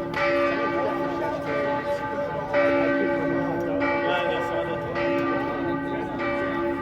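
Church bells of St. Charles's Church (Karlskirche) in Vienna ringing together. A fresh stroke comes roughly every second and a quarter, and each rings on beneath the next.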